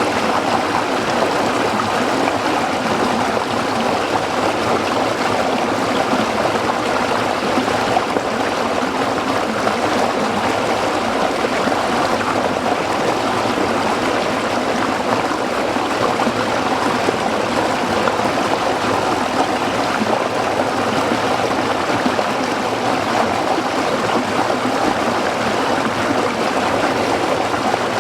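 Small stream flowing steadily over rocks, a continuous even babble and splash of water.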